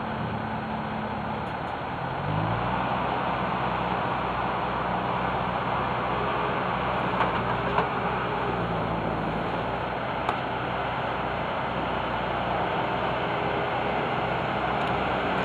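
A motor vehicle's engine running steadily, its pitch stepping up a little about two seconds in, with a few faint clicks.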